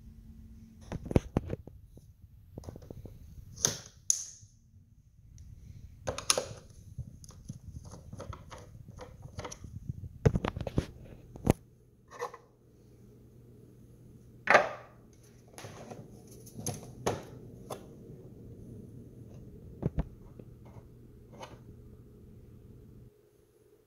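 Plastic external hard-drive enclosure being handled and turned over: scattered clicks, taps and knocks of the plastic case against the table and under the hand. A low steady hum runs through the second half and cuts off shortly before the end.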